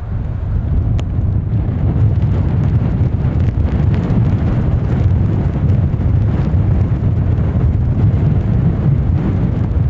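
Strong storm wind buffeting the microphone: a loud, steady low rumble with gusty rushing noise above it, and a single sharp click about a second in.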